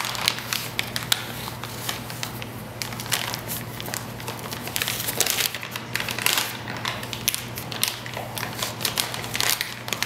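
Protective paper being peeled off a splash guard, with continuous irregular crackling and crinkling as it comes away from the panel.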